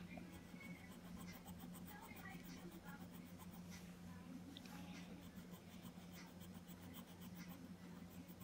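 Faint scratching of a felt-tip marker colouring on paper, over a low steady hum.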